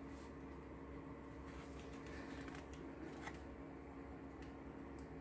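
Keys of a gaming keyboard being pressed: a few faint, scattered clicks a second or so apart, over a steady low hum.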